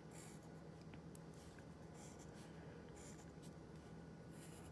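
Graphite pencil drawing light guide lines on graph paper: short, faint scratching strokes about every second.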